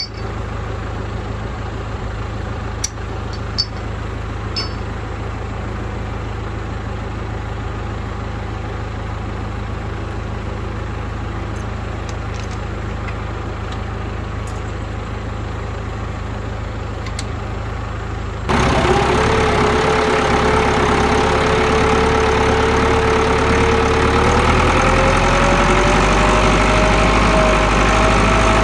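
Farm tractor engine running steadily. About two-thirds of the way through it becomes abruptly louder, and near the end a whine rises in pitch as the engine speeds up.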